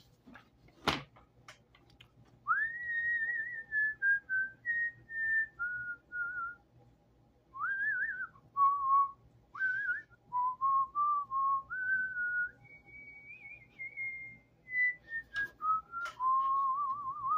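A person whistling a wandering tune, one clear note at a time with slides and a slight wobble in pitch, in short phrases with gaps between them. A single sharp click about a second in.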